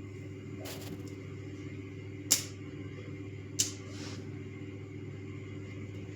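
Three sharp taps over a steady low hum, the second and third the loudest.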